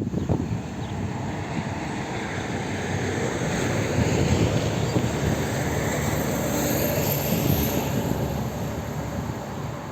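A vehicle passing by: a steady rushing noise that builds to its loudest about halfway through, then fades away, with wind buffeting the microphone underneath.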